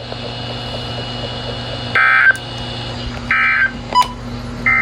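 NOAA Weather Radio SAME end-of-message data bursts: three short, buzzy two-tone digital bursts about 1.3 seconds apart, the first about two seconds in, marking the end of the warning message. A steady low hum runs underneath.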